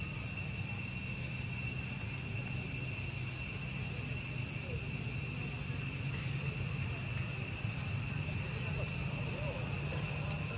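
Steady high-pitched drone of a forest insect chorus, with a low steady hum beneath it.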